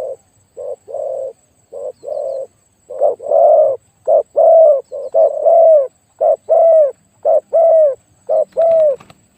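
Spotted dove cooing over and over, in pairs of a short note and a longer note, the longer notes curving down in pitch. The calls grow louder about three seconds in.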